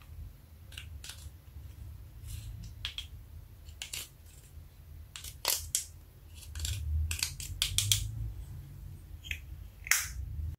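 A plastic spatula scraping and crumbling pressed eyeshadow out of a clear plastic compact, heard as irregular clicks and scratches. The scratching comes in a denser run about halfway through.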